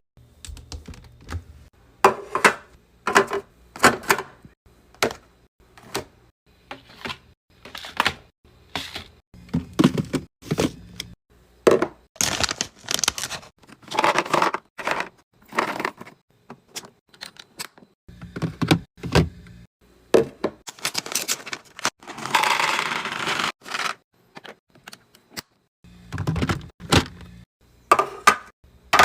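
Containers, bottles and packaged snacks being handled and set onto mini fridge shelves: irregular clicks, knocks and thunks throughout, with a few longer stretches of rustling and scraping of packaging.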